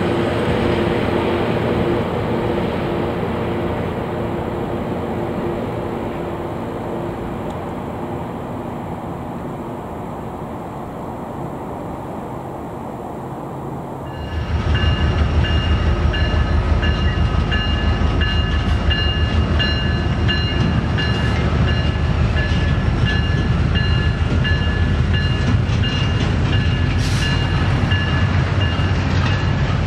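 Loram rail grinder running on the track: its diesel-machinery sound slowly fades as it moves off. About halfway through it gives way abruptly to a louder, heavier rumble with several steady high-pitched whines over it.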